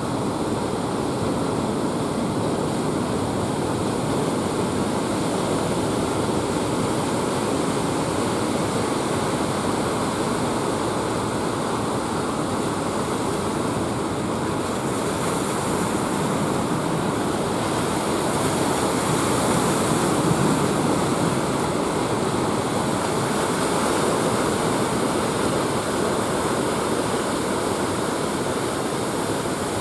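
Ocean surf breaking on a beach: a steady rush of waves that swells louder about two-thirds of the way through.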